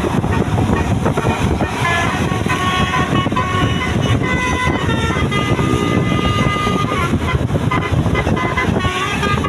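Basuri 'telolet' multi-tone bus horn playing a tune of held notes that step from one pitch to another, over steady low noise.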